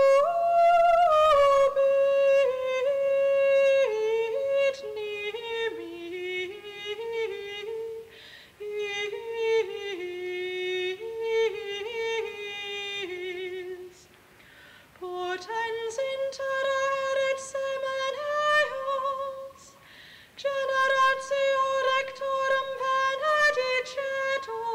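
A solo high singing voice, unaccompanied, sings a slow melody with vibrato in phrases broken by three short breaths. At this point in the Mass it is the chant of the responsorial psalm.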